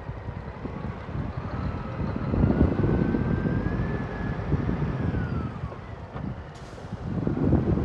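Scania R124 440 truck's 12-litre straight-six diesel driving past with its drawbar trailer in tow, a deep engine rumble that swells as it passes. A faint whine rises and then falls in the middle.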